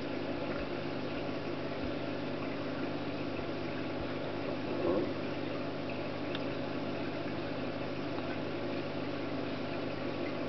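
Steady mechanical hum with hiss, made up of several low steady tones, and a brief faint sound about halfway through.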